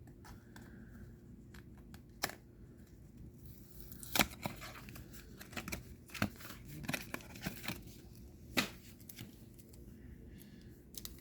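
Trading card pack wrapper and cards being handled: scattered crinkles and sharp card clicks, the loudest about four seconds in and again past eight seconds.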